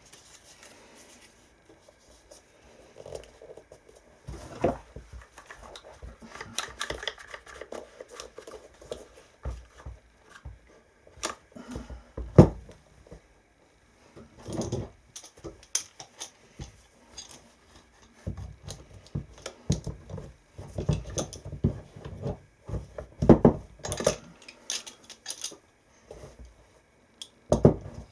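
Hands handling clamps and a glued shoe on a work surface: irregular clicks, knocks and scrapes while the repair is clamped together, with one sharp knock about twelve seconds in.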